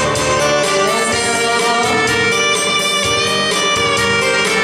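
Instrumental intro of a Korean song's backing track: a melody over a steady accompaniment, with no singing.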